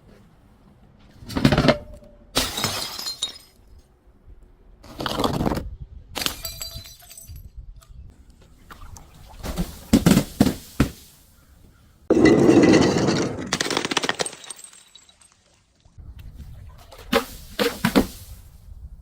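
Glass bottles being broken and crushed: a series of sharp crashes of shattering glass with crunching between them, and a longer stretch of crunching about twelve seconds in.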